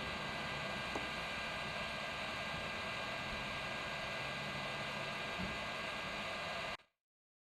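Steady hiss of a hot-air rework station blowing, with a faint hum underneath; it cuts off abruptly near the end.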